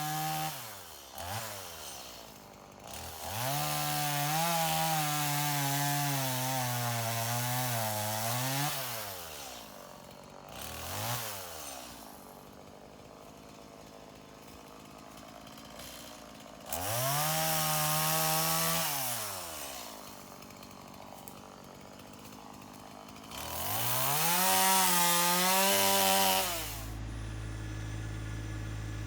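Chainsaw revving up to full speed and dropping back to idle, three long runs of a few seconds each with short blips between. Near the end a steady low engine hum takes over.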